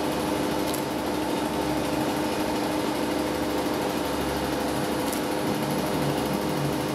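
Steady machine-like hum, one even drone with a few constant tones over a hiss, unchanging throughout.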